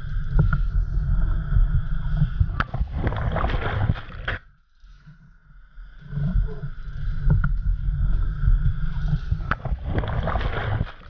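Surf breaking over a sit-on-top fishing kayak, heard on a kayak-mounted action camera: a heavy rumble of wind and rushing water on the microphone that builds to a crash of whitewater and splashing. This happens twice, with a brief lull about four and a half seconds in, and cuts off suddenly at the end.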